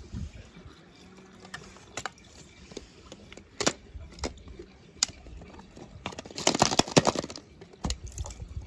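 A clear plastic egg filled with water and holding a die-cast toy car being handled: scattered plastic clicks and knocks, then a louder stretch of clattering and splashing about six to seven seconds in.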